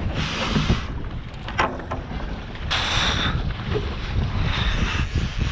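Wind buffeting the microphone on a boat at sea, with sea water splashing and rushing, and a louder hissing rush about three seconds in.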